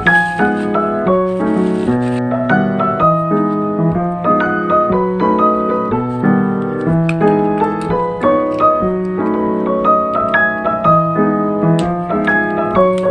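Solo piano music: chords and a melody struck at a steady pace.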